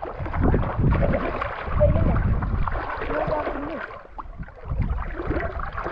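Someone wading through shallow water, the water sloshing with each stride about a second apart.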